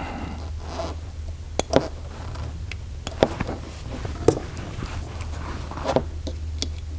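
Metal airgun parts and hand tools being handled on a table: a few sharp, separate clicks and taps over a steady low hum.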